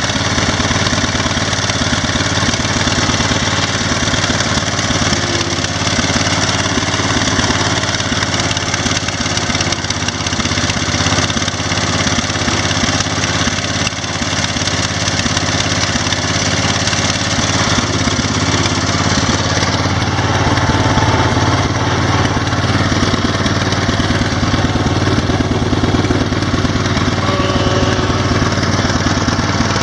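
Massey Ferguson 1650 garden tractor's engine running steadily at a constant speed.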